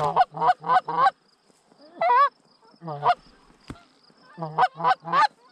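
Canada geese honking in short, loud two-note calls: four quick honks, a longer wavering one about two seconds in, another near three seconds, and three quick honks near the end.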